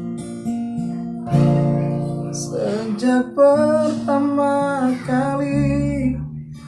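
Acoustic guitar strummed and picked, with a voice singing a melody over it from about two and a half seconds in.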